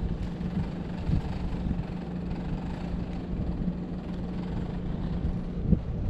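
A steady low motor hum over wind rumbling on the microphone. The hum stops shortly before the end with a single sharp tap.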